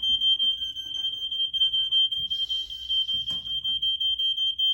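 Hardwired smoke alarm sounding a steady, unbroken high-pitched tone, set off by smoke from caribou frying in butter. A few brief rustles and knocks come through in the middle.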